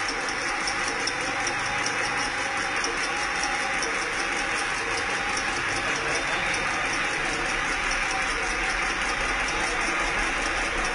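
High-speed automatic incense stick making machine running: a steady, rapid mechanical clatter with a fast, even beat.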